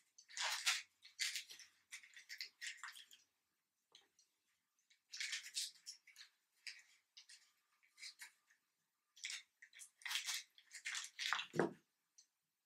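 Paper and cotton net rustling in short bursts as a lace pattern is handled and pinned under net stretched in an embroidery hoop, with a soft bump near the end.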